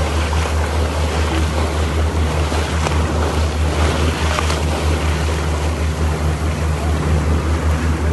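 Motorboat under way at speed: the wake rushing and churning along the hull over a steady low drone.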